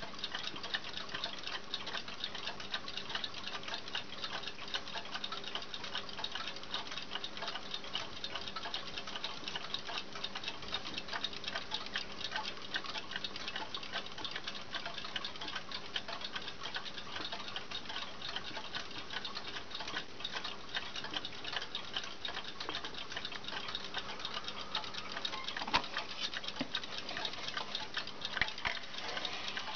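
1954 Hermle mantel clock's movement ticking steadily, with a couple of sharper clicks near the end as a finger turns its hands.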